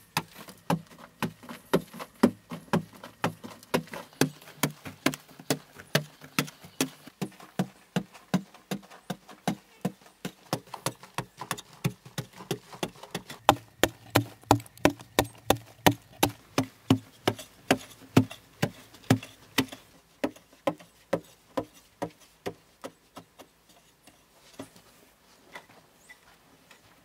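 A mattock blade chopping into a packed sandy-clay earth wall in quick, steady strokes, about two to three a second, each a sharp strike with a dull thud. The strokes thin out and fade after about twenty seconds.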